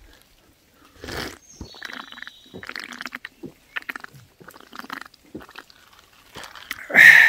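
Someone drinking iced coffee from a plastic cup: a series of small sips, swallows and clicks, ending near the end with a loud, satisfied breathy exhale.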